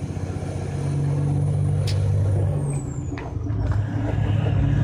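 Heavy truck's diesel engine running steadily, its note shifting about three seconds in, with a brief sharp click near two seconds in.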